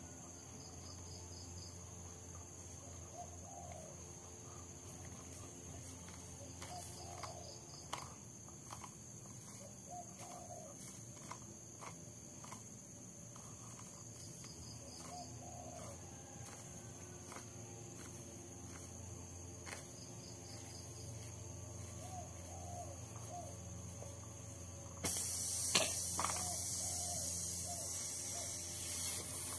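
Steady cricket chirring, with scattered small clicks and taps from the tyre-repair tools. About 25 seconds in a sudden hiss starts and slowly fades: air escaping through the enlarged puncture in the tyre tread as the plug tool is worked into it.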